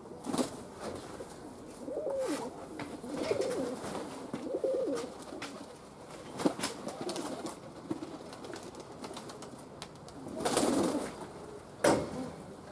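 Domestic pigeons cooing: a run of low, rolling coos in the first half and a louder burst near the end, with a few sharp clicks.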